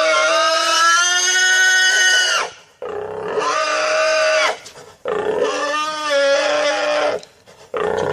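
Pigs squealing: three long, loud, high-pitched squeals of about two seconds each, with short breaks between them.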